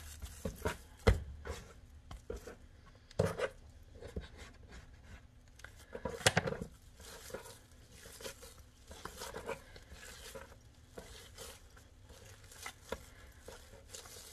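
Hands kneading a seitan dough of vital wheat gluten on a wooden board, working in extra flour: soft, irregular pats, squishes and rubbing, with a few louder knocks on the board.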